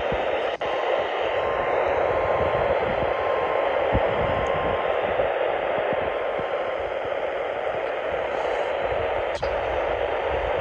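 Weather radio receiver hissing with static, with a faint steady tone under it for the first two seconds or so and a couple of brief clicks.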